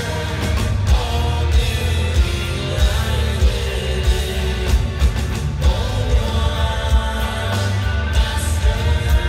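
A live rock band playing, with a male lead singer over drums, guitar and keyboards and a steady drum beat, recorded from within the concert audience.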